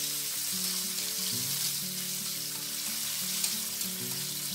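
Bell pepper strips sizzling steadily as they half-fry in hot cooking oil in an aluminium wok, stirred with metal tongs. Quiet background music with held notes plays underneath.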